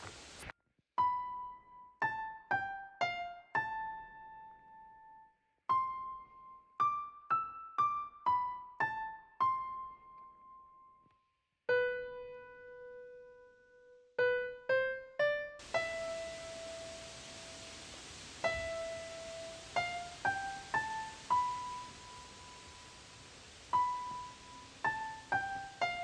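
Slow, sparse background piano music: single notes struck one after another, each ringing and fading. About two-thirds of the way in, a faint steady hiss of outdoor sound comes in under the notes.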